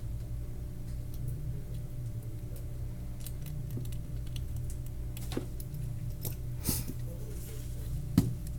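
Scattered light clicks and taps of small objects being handled, with a few louder knocks in the second half, over a steady low hum.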